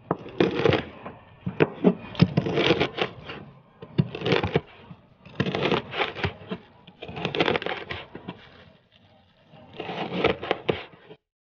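Chef's knife chopping grilled pig ear on a plastic cutting board: runs of quick knocks of the blade against the board with some scraping, in bursts broken by short pauses.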